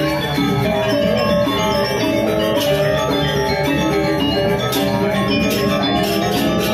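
Balinese gamelan playing, its metal-keyed percussion ringing in a dense, steady texture of held pitches.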